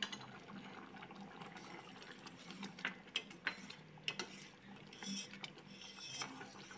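Steel spoon stirring milky rice kheer in a stainless steel pan, giving a few light clicks and scrapes against the metal, mostly in the second half, over faint bubbling of the simmering milk.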